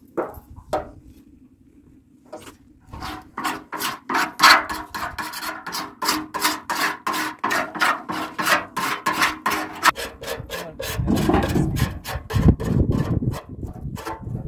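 A knife blade scraping dried white curd residue off the inside of a large metal basin, in quick repeated strokes, several a second, starting about three seconds in. Near the end it gives way to a duller, lower rubbing.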